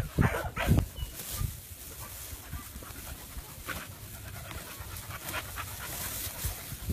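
A Colby pit bull breathing hard close by in quick, noisy pants, with a few louder bursts of breath in the first second.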